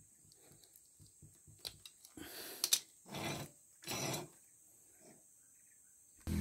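Hands handling a length of plastic hose against a steel motorcycle rear sprocket and trimming it with a utility knife: light clicks and taps, then three short scraping, rustling sounds in the middle, one with a sharp click. At the very end an engine sound comes in suddenly and loudly.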